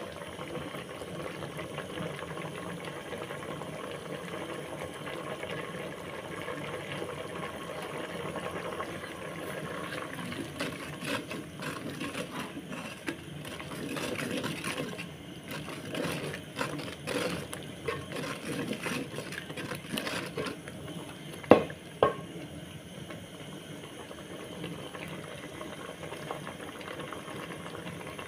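Noodles in a thin tomato sauce bubbling in an aluminium cooking pot, with a wooden cooking stick stirring and scraping through them. Two sharp knocks close together about two-thirds of the way through are the loudest sounds.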